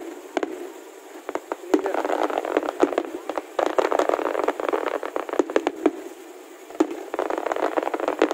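Aerial fireworks bursting in rapid volleys of sharp pops and crackles, thinning out briefly about six seconds in before picking up again.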